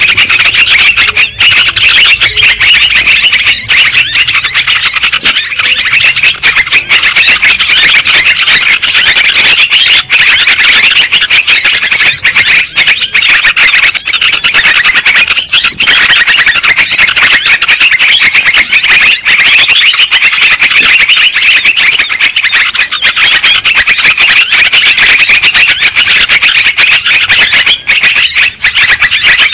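Bird-lure recording of yellow-vented bulbuls (trucukan): a loud, unbroken chorus of many overlapping chattering calls.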